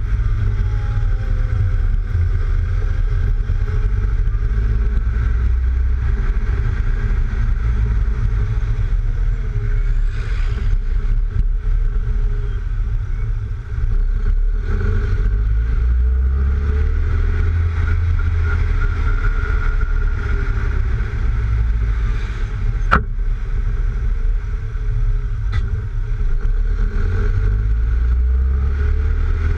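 Lowered Mk3 VW Golf driving: heavy wind rumble, which the owner puts down to the roof racks, over tyre roar and the engine note rising and falling with speed. A single sharp click comes about two-thirds of the way through.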